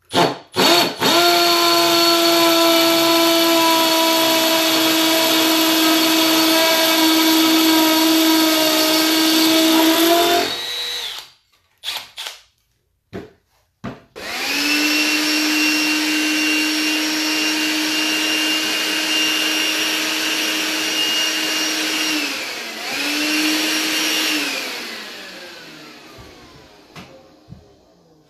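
Milwaukee M12 Fuel brushless hammer drill drilling into brick in hammer mode. After a couple of short starts it runs steadily under load for about ten seconds, then stops. A few seconds later a compact cordless Milwaukee tool with a nozzle runs for about eight seconds with a steady high whine, gives one short second burst and spins down with a falling pitch.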